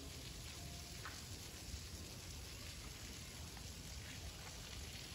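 Faint, steady background hiss of outdoor ambience, with one soft knock a little under two seconds in.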